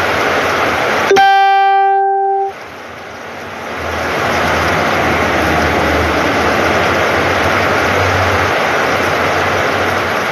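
Heavy rain falling in a steady hiss. About a second in, the rain sound cuts out and a single loud pitched tone with many overtones sounds for about a second and a half; then the rain fades back in.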